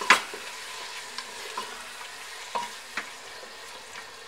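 Minced meat and powdered spices frying with a steady sizzle in a pressure cooker while a spatula stirs them, knocking and scraping against the pot about five times, loudest right at the start.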